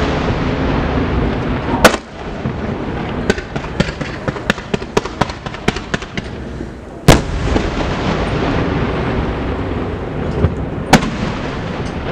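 Aerial firework shells bursting. Three loud sharp bangs come about two seconds in, about seven seconds in and near the end, with a quick run of smaller cracks between them, over a continuous rumble of echoing booms.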